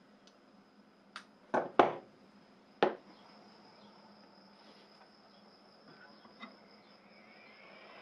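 Sharp clicks and knocks from an 18650 lithium cell being handled and set into a metal clamp: four within the first three seconds, the loudest about two seconds in, and a lighter one later. A faint steady high whine and a low hum lie underneath, and a hiss starts to rise near the end.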